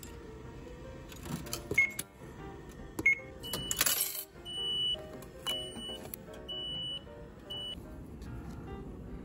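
Railway ticket vending machine: short beeps from its touch-screen buttons, a clatter of coins being fed in about three and a half seconds in, then a high electronic beep repeating about once a second for a few seconds as it issues the ticket and change.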